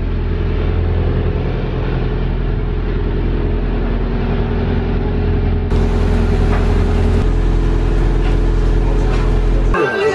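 Boat's inboard engine running steadily, a low even drone. It cuts off near the end.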